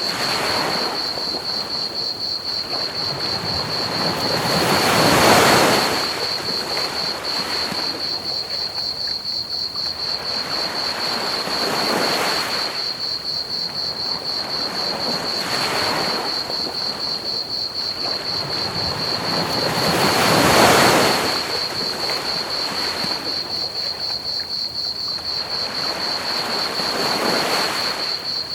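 Ocean waves washing onto a beach, swelling and falling every few seconds, the two biggest about five seconds in and about two-thirds of the way through. Under them runs a steady high chirping trill of crickets and an even hiss of pink noise.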